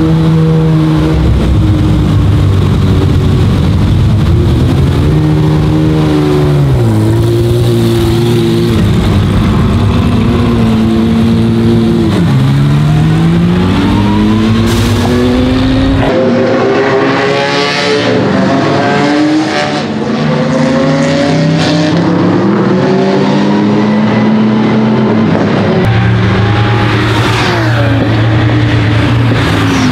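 Pagani Zonda GR race car's 6.0-litre Mercedes-AMG V12 running loud. It idles with short revs in the first half, then accelerates hard with the pitch climbing and dropping at each gear change, and falls in pitch near the end.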